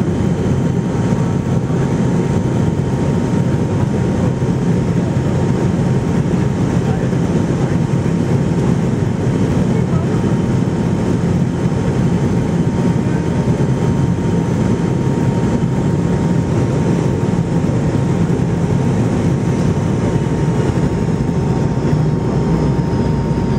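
Cabin noise inside a McDonnell Douglas MD-80 on final approach with flaps extended: a steady rush of airflow and drone from its rear-mounted turbofan engines, with a thin steady whine above it.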